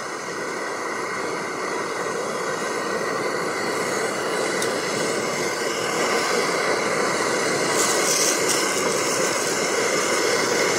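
Burger patties sizzling on a cast iron pan over a gas camping burner: a steady hiss that grows louder over the first half, with a brief brighter burst of sizzle about eight seconds in, after two more patties go on.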